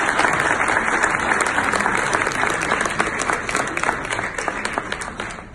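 Audience applauding, many hands clapping at once, fading near the end.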